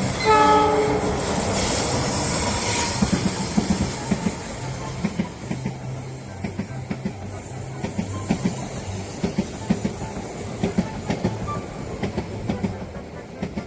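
A train passing on the rails, its wheels clicking in a steady rhythm over the rail joints above a low, steady rumble. A short tone sounds right at the start.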